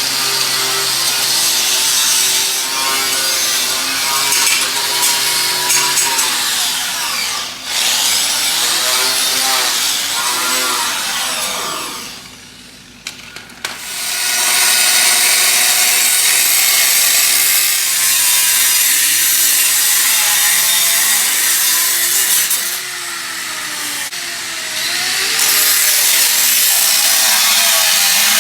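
Angle grinder working the steel frame rails of a pickup truck, its whine sagging and rising with the load. It spins down about twelve seconds in, starts up again a couple of seconds later, and eases off briefly near the end.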